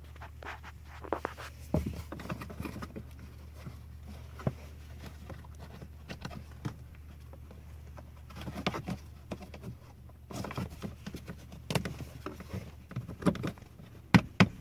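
Hands handling the plastic cabin air filter housing cover behind the glove box: scattered light clicks, taps and rubbing as its tabs are pushed up and worked loose, with two sharp clicks near the end. A steady low hum runs underneath.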